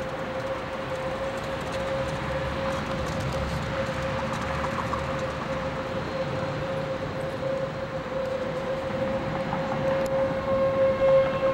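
Outdoor tornado warning siren sounding one steady tone over a low rumbling noise; further steady tones join near the end.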